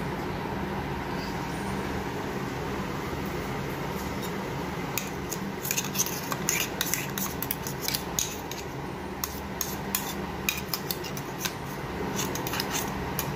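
Metal clinking and scraping against a stainless steel bowl, quiet at first, then many sharp clinks in quick succession through the second half, over a steady low hum.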